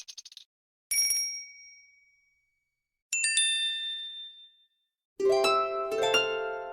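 Samsung Galaxy S5 notification tones played one after another with short silences between: a few faint clicks at the start, a single bright chime about a second in, a quick few-note chime at about three seconds, and a longer run of bell-like notes from about five seconds that rings on past the end.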